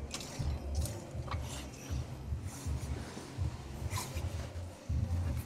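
Uneven low rumble inside a car cabin, with a few faint clicks.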